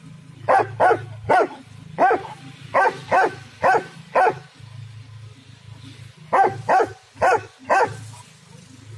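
German shepherd barking loudly: a run of about eight sharp barks, a pause of about two seconds, then four more barks.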